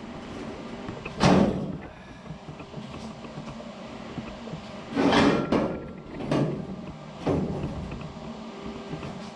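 Several sharp knocks and clanks from parts being handled in a workshop: one about a second in, then a cluster around five to seven seconds in, over a steady low background noise.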